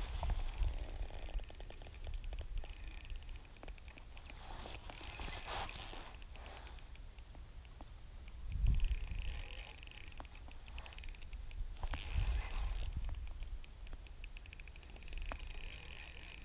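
Spinning reel clicking in rapid runs of ticks, several seconds at a time with short breaks, while fighting a large hooked fish on a medium-light rod.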